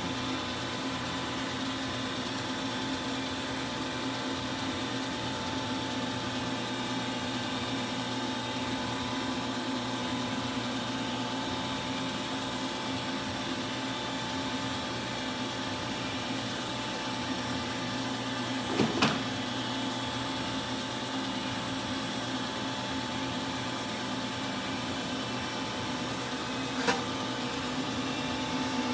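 CNC milling machine running with a steady hum and whine made of several held tones. Two short sharp knocks break it, one about two-thirds of the way through and one near the end.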